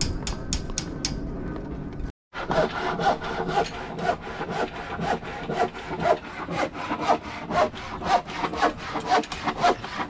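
A hand saw cutting through a new timber plank, with steady back-and-forth strokes about two and a half a second. The sawing starts about two seconds in.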